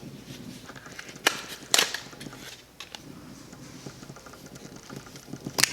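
Low handling and rustling noise from products and packaging being picked up and set down, with three sharp clicks or taps: two close together a little over a second in, and one near the end.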